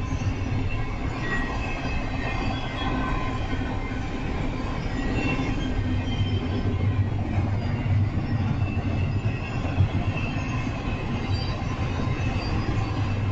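Double-stack intermodal freight train's container cars rolling past: a steady rumble of steel wheels on rail, with faint thin high wheel squeals wavering over it.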